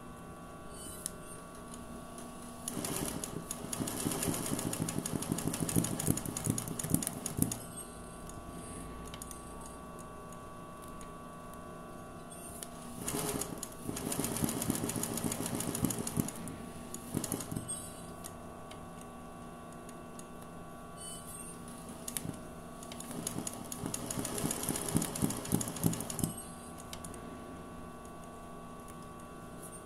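Sewing machine stitching free-motion embroidery in three bursts of a few seconds each, the needle running fast. A steady hum continues in the pauses between bursts.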